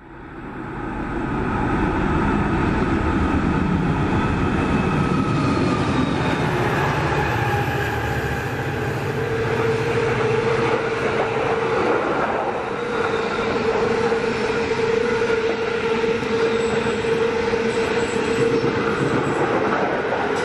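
Sydney Trains electric train running on the tracks, a continuous rumble of wheels and running gear. The sound fades in over the first couple of seconds, and a steady tone joins it about halfway through.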